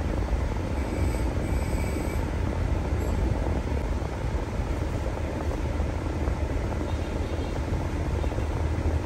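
Mitsubishi Pajero idling with its air-conditioning running: a steady low engine hum under the even noise of the AC system. The AC is being tested for cold after a refrigerant recharge.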